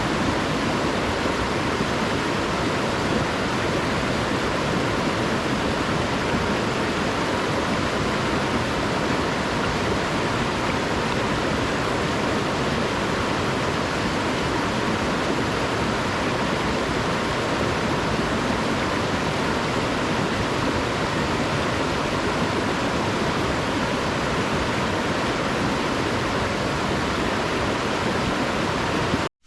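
The Caribou River rushing over rocks and small falls: a steady, unbroken roar of churning water that stays at one level throughout and cuts off abruptly at the very end.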